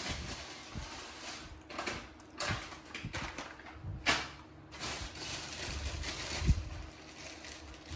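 A baby macaque eating noodles and rice with its hands: soft, irregular chewing and handling noises with a few light knocks, over a faint steady hum.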